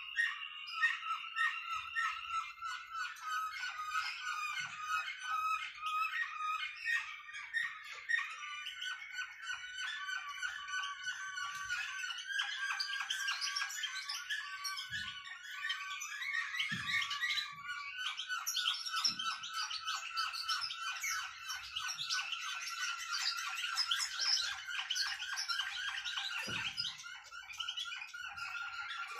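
Caged songbirds of the finch kind singing, a continuous run of rapid twittering and trilled phrases.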